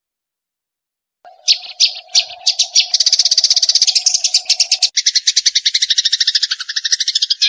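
A small songbird trilling. It starts about a second in with a few spaced chirps that speed up into a fast, continuous rattling trill. A steady hum sits under the first few seconds, then stops.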